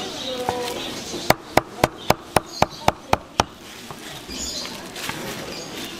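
Knife chopping quickly on a cutting board: a run of about nine sharp strokes, roughly four a second, starting a little over a second in.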